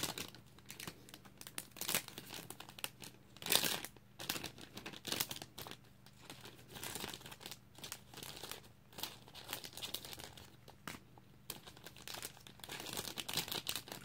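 Plastic packaging crinkling and tearing in irregular crackles as mail is unwrapped and handled, with the loudest rustle about three and a half seconds in.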